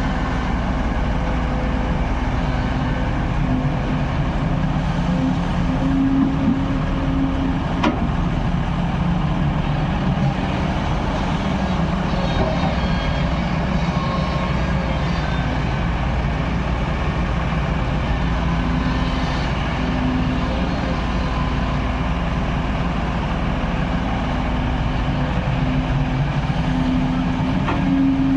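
Backhoe loader's diesel engine running steadily under work, its note swelling slightly now and then, with a faint sharp knock about eight seconds in.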